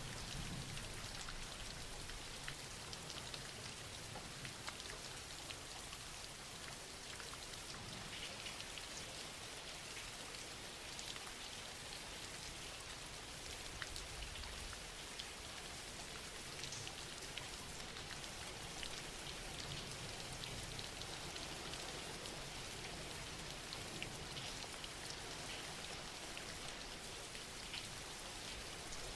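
Soft steady rain, an even hiss with many small scattered drop ticks.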